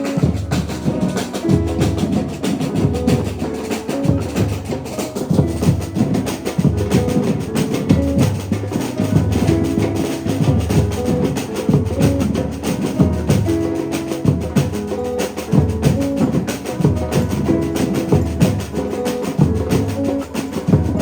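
Background music with a steady drum beat and percussion.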